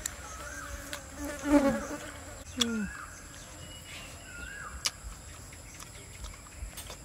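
Steady, high-pitched drone of insects, with a few short murmurs of a voice and some clicks over it.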